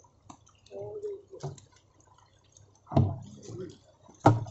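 Wet knocks, drips and splashes from catfish being handled in plastic barrels of water, with two louder sudden knocks about three seconds in and near the end, and brief snatches of voices.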